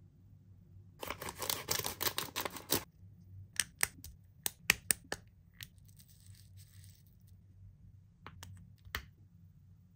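Toy packaging being handled: a dense crinkling, tearing burst of about two seconds, then a scattering of sharp clicks of small hard plastic pieces, with a few more clicks near the end.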